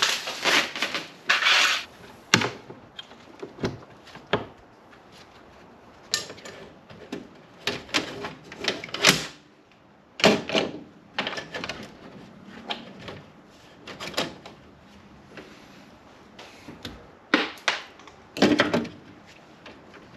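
Irregular clicks, taps and short scraping rustles of wiring being handled and pushed into an open circuit-breaker panel, with pauses between.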